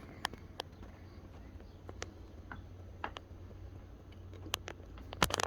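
Scattered light clicks and taps of a plastic toy RC car being handled and turned over, with a quick cluster of clicks near the end, over a steady low hum.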